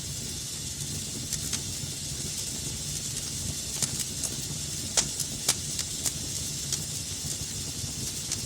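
Wood fire crackling in a fireplace: a steady hiss and low rumble of burning with scattered sharp pops, the loudest about five seconds in.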